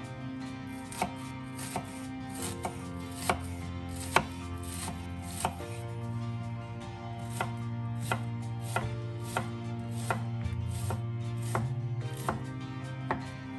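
Chef's knife slicing and dicing a shallot on a wooden cutting board: single sharp knocks of the blade through the shallot onto the wood, uneven at first, then steadier at about one every 0.7 s. Soft background music with held notes plays underneath.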